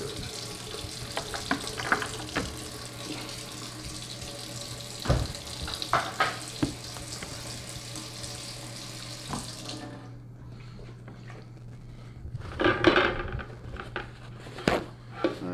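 Kitchen faucet running into a stainless steel sink, with splashes and knocks as a wet turkey is handled and set down on a wooden cutting board, including a dull thump about five seconds in. The water shuts off suddenly about ten seconds in. A burst of paper towel rustling follows near the end.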